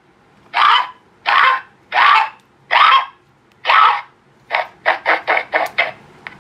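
Recorded duck quacks played through an electronic duck caller's horn loudspeaker: five long quacks about two-thirds of a second apart, then a quicker run of shorter quacks from about four and a half seconds in.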